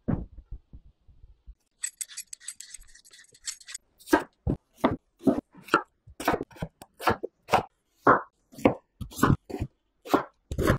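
Kitchen knife slicing through a peeled raw potato onto a wooden cutting board, steady cuts about two a second from about four seconds in. Before that, a few soft knocks and a brief crisp crackle as the knife starts into the potato.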